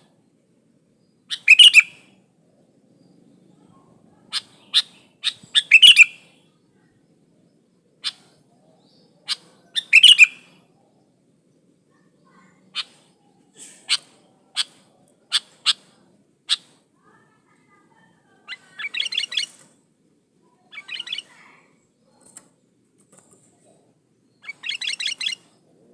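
Sooty-headed bulbul calling: sharp single notes spaced irregularly, with loud rapid chattering phrases about two, six and ten seconds in and quicker rattling trills in the second half.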